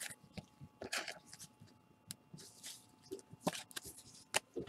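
Plastic packaging of a trading-card box crinkling and rustling as gloved hands unwrap it, in irregular crinkles and small taps.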